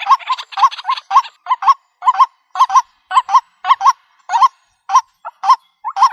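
White-breasted waterhen calling: a rapid, rhythmic run of short, harsh croaking notes, about three a second, with a brief pause a little past the middle.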